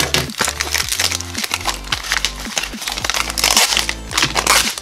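Stiff plastic packaging and tape crinkling and crackling as it is pulled open by hand, over background music with a steady bass line.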